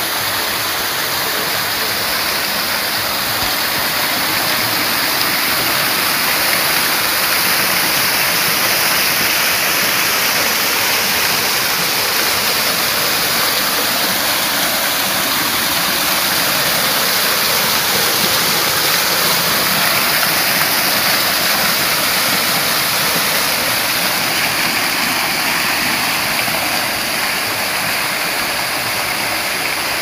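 Water from a man-made, pump-fed waterfall pouring and splashing in a steady, even rush, mostly high in pitch.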